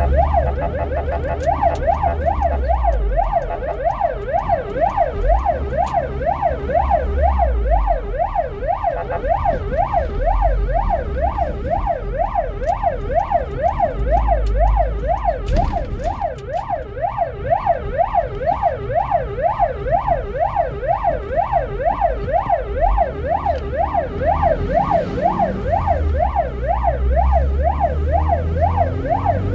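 Ambulance siren in yelp mode, heard from inside the vehicle: a loud wailing tone sweeping rapidly up and down, two to three times a second, over a low engine rumble.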